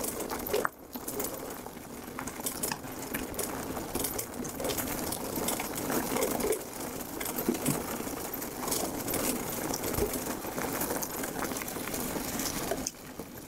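Riese and Muller Superdelite Mountain e-bike rolling over a wet, leaf-covered trail: steady tyre noise with frequent clicks and rattles from the bike.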